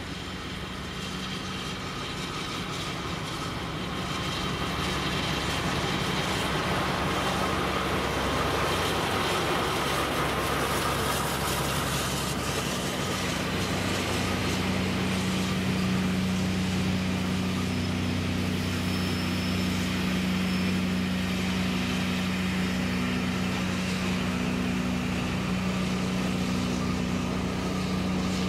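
Class 52 diesel-hydraulic locomotive's Maybach MD655 engine running as the train draws in and past, with coach wheels rumbling on the rails. It grows louder over the first few seconds, and from about halfway through it settles into a steady low hum. The uploader thought one of the loco's two engines had been shut down.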